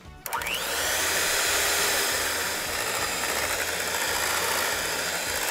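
Cuisinart electric hand mixer running, its beaters whipping a chilled oil mixture in a glass bowl into a thick cream. The motor spins up with a rising whine just after the start, then runs with a steady whir.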